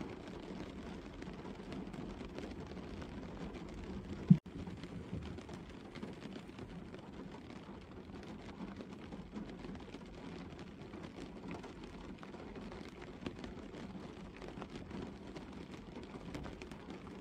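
Gentle rain falling steadily on a stationary car's roof and bonnet, heard from inside the car, with many small drop ticks. There is one loud, sharp knock about four seconds in.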